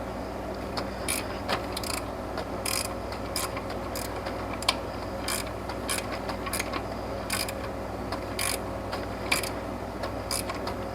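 Hand socket ratchet clicking in short, irregular strokes as a bolt is run in through the alternator bracket.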